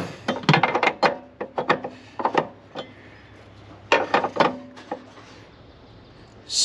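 Leveling-kit spacer and strut top plate knocking and scraping together as they are turned and tried for fit, in several short bursts of clunks with pauses between.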